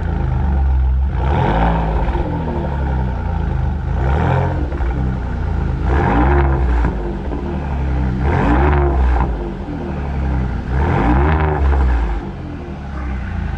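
Ford F-150 exhaust through a newly fitted Borla S-Type muffler, heard at the tailpipe as the parked truck is revved about five times. Each rev rises in pitch, then settles back to a deep idle rumble.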